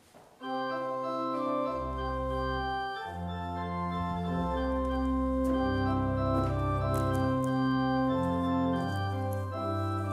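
Organ playing slow held chords. It enters about half a second in, deep bass pedal notes join just under two seconds in, and the chords change every second or two.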